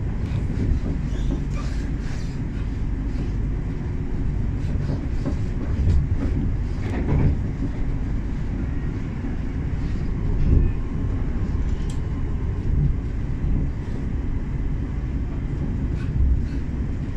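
Class 710 electric multiple unit heard from inside the carriage while running: a steady low rumble of wheels on rail, with a few knocks and clicks along the way.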